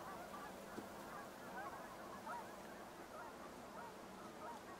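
A distant flock of waterfowl calling: many faint, overlapping calls at once.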